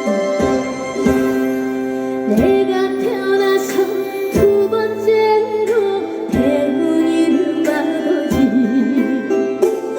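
Trot song performed live: a woman singing with vibrato over an instrumental backing, with a low bass note landing about every two seconds.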